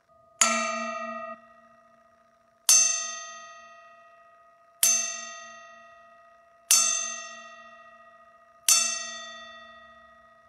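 A bell struck five times, about two seconds apart, each stroke ringing out with a shimmering tone and slowly fading; the first stroke is cut short after about a second.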